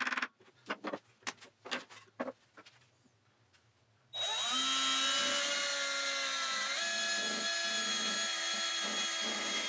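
A few short knocks and scrapes, then about four seconds in a cordless drill starts suddenly and runs with a steady whine, its twist bit boring a hole through a western red cedar support arm.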